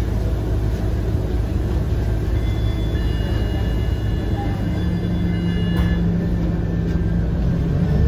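Scania K230UB single-deck city bus on the move: steady engine and road rumble, with a low steady hum joining about halfway through.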